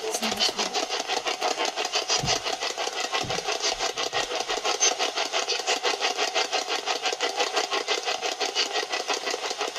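A steady machine-like whirr with a fast, even pulse, like a small motor running without a break. Soft low thumps come about two and three seconds in.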